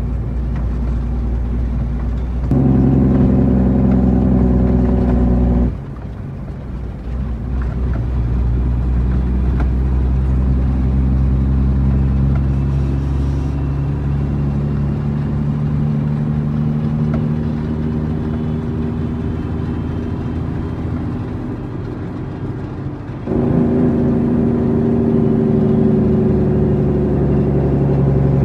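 Heavy truck's diesel engine running under way with a steady low drone. It grows suddenly louder and fuller about two and a half seconds in, drops back about three seconds later, and rises suddenly again near the end.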